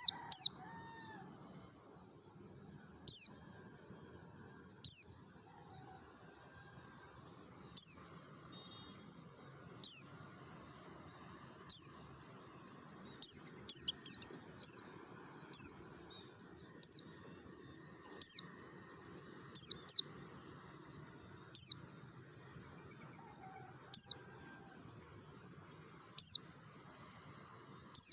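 Pleci (white-eye) singing its wild-type 'ngalas' song: short, very high-pitched notes that each drop sharply in pitch. They repeat every one to two seconds, coming in a quicker cluster around the middle.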